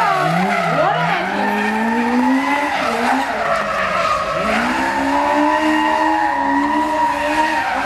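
Stunt car sliding with its tyres squealing steadily, while the engine revs rise and fall.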